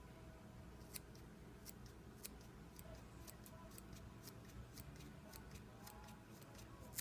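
Small curved scissors snipping caribou hair, trimming a tuft sewn into hide into a rounded shape: faint, quick snips about three a second, beginning about a second in.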